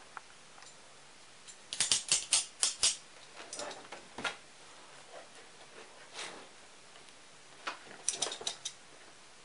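Packaging being handled: two quick runs of sharp crackling clicks, about two seconds in and again near the end, with softer rustling between.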